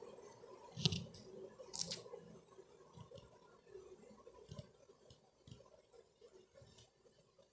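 Hands rustling through long hair while arranging fresh curls: two louder rustles about one and two seconds in, then fainter soft rustles and ticks.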